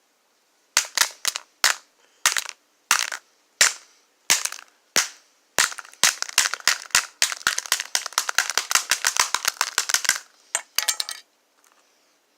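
A knife repeatedly striking a smartphone's battery: sharp hits about one every half second at first, then a fast flurry of several hits a second for about four seconds, and a few last hits near the end.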